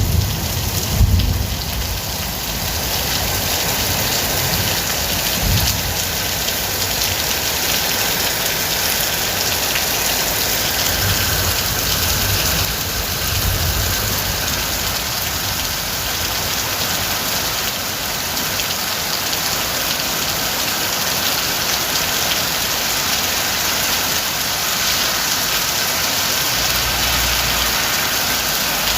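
Steady heavy rain falling on a surface, with low rumbles of distant thunder a few times, mostly in the first half.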